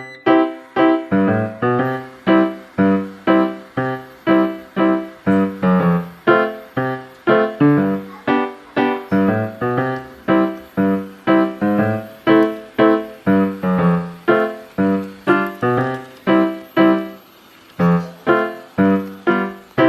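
Background music: a bouncy piano or keyboard tune with a steady rhythm of short, quickly fading notes.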